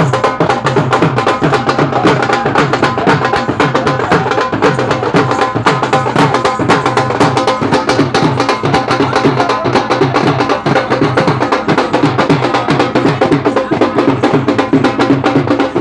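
Loud music with fast, steady drumming: dense rapid drum strokes over a continuous low beat.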